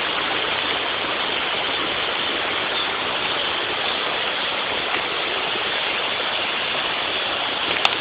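Steady rush of flowing stream water, with one brief click near the end.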